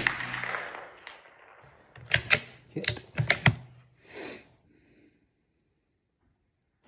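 A single shot from an Anschutz 1903 .22 rimfire target rifle firing subsonic ammunition, with its echo trailing off over about a second, and a faint tap about a second after the shot: the delayed sound of the bullet striking the steel target 200 yards away. From about two seconds in, a quick series of sharp metallic clicks as the rifle's bolt is worked.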